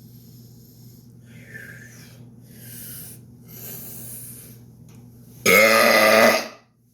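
A man's loud, deliberate burp, about a second long and strongly pitched, near the end.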